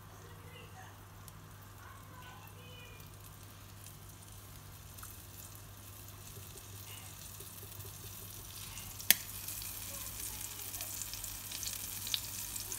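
Tomato slices coated in flour frying in hot sunflower oil in a pan: a faint sizzle that grows louder in the second half. About nine seconds in there is one sharp pop of the oil starting to spit, followed by a few small crackles.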